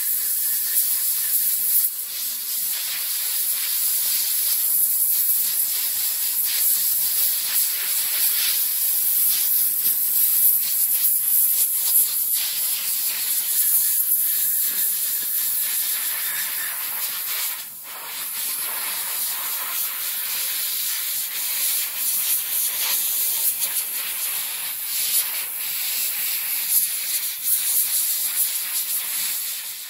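Airbrush spraying paint: a steady high air hiss that dips briefly about two seconds in and again a little past halfway.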